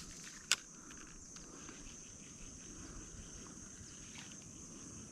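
Insects droning steadily at a high pitch, with a single sharp click about half a second in.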